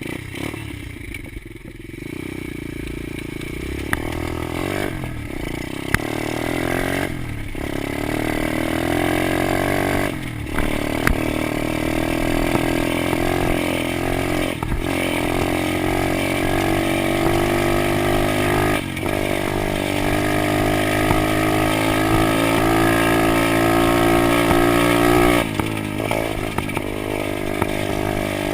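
110cc Stomp pit bike's single-cylinder four-stroke engine pulling hard under throttle on a run. The note climbs, breaks briefly several times as if at gear changes, and eases off near the end.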